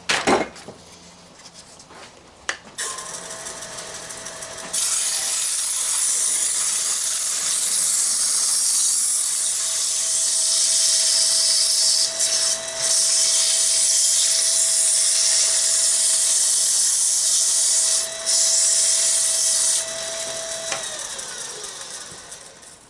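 Wood lathe motor starting with a steady whine, then 100-grit sandpaper pressed against the spinning wooden box lid: a loud steady hiss with two brief breaks. Near the end the paper comes off and the lathe winds down.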